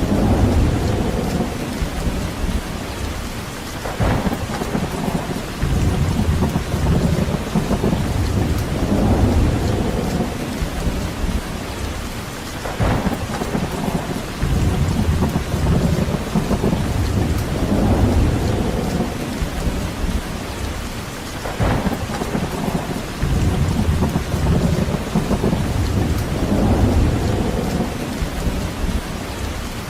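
Steady rain with a deep low rumble that swells and fades every several seconds. A short, sharp crackle comes about every nine seconds, near the start, middle and later on.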